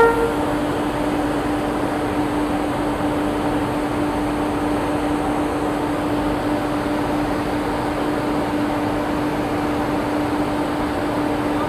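Stationary WAP-7 electric locomotive running its auxiliaries: a steady machine hum with one constant low droning tone. The tail of a train horn blast cuts off right at the start.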